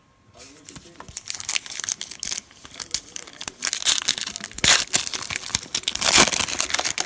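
Foil wrapper of a trading-card pack crinkling and tearing as the pack is opened by hand. The crackling is loudest about two-thirds of the way through and again near the end.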